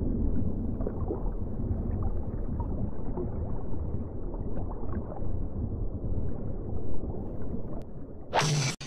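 Underwater ambience sound effect: a steady low rumble with faint bubbling. Near the end comes a sudden, short, loud burst of noise that cuts off abruptly, a cartoon collision effect as the crocodile and shark hit head-on.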